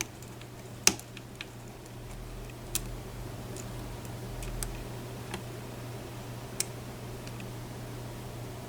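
Lock pick and tension wrench working in the pin stack of a challenge lock: about half a dozen small, sharp metal clicks at irregular intervals, the loudest about a second in, as the pins are probed and set.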